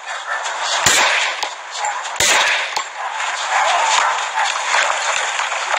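Police officer's handgun firing: a sharp bang about a second in and another sharp bang just over a second later, over the rubbing and rustle of a body-worn camera as the officer moves.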